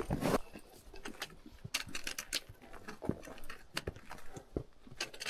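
Footsteps over rocks: irregular scuffs, clicks and knocks of boots on stone, with a few heavier steps.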